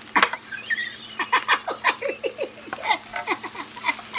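Wooden spatula scraping and tapping in a non-stick frying pan in quick repeated strokes, stirring vegan mince into onions frying in olive oil. There is a sharp knock near the start.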